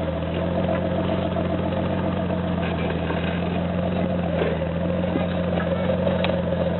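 Jeep Wrangler's engine running steadily at low revs, holding an even pitch with no revving.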